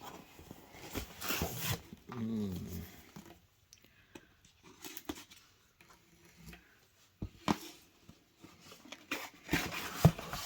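Small camera box and packaging being handled and opened: scattered light clicks, taps and rustles. A brief voice-like sound comes about two seconds in.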